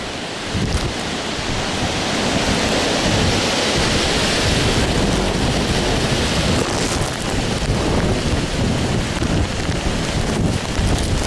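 Hurricane wind gusting with driving rain, the wind rumbling on the microphone. A stronger gust builds about two to three seconds in and eases off around seven seconds.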